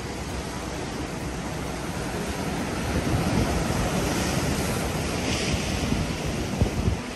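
Ocean surf breaking and washing over a rocky shore, swelling louder about three seconds in as a bigger wave crashes and then easing near the end, with wind buffeting the microphone.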